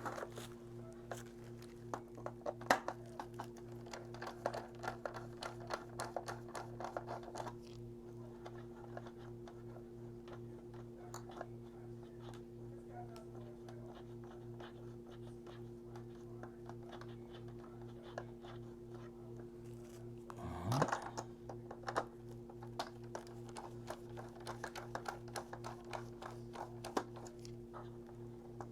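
Light, irregular clicking and scraping of a small screwdriver backing screws out of a model train car's chassis, in two spells of small clicks. A steady low electrical hum runs underneath.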